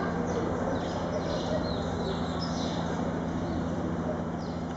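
Steady low hum and background noise of a large covered hall, with short, high chirps scattered through it, like small birds calling.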